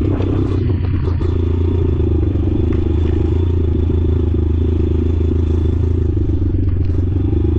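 Motorcycle engine running steadily at an even pitch.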